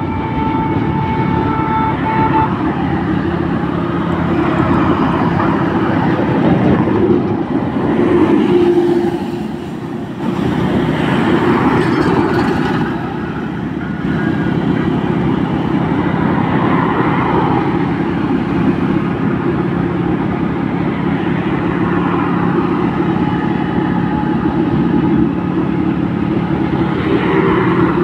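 Steady engine drone and road noise of a vehicle driving at speed on a highway, with a horn sounding for the first two seconds or so.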